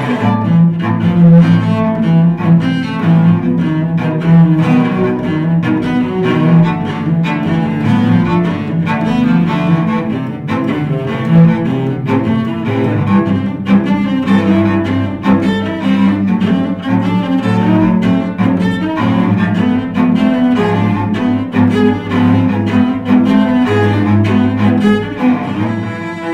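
Two cellos playing a bowed duet: a line of many short, quick notes over a sustained low part.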